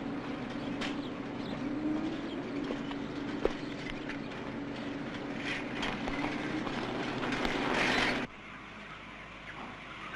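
Bicycle rattling over a rutted dirt road, growing louder as it comes near, over a steady drone. The sound cuts off abruptly about eight seconds in, leaving quieter room tone.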